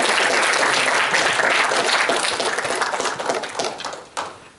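Audience applauding, steady at first and then dying away about four seconds in, with one last sharp clap as it fades.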